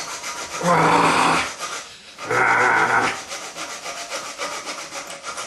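A bare reciprocating-saw blade, held by hand, sawing back and forth through the end of a toilet closet bolt, a steady rasping rub of quick strokes as the cut nears its end. Twice a man's voice gives a drawn-out strained sound with the effort, about a second in and again at about two and a half seconds.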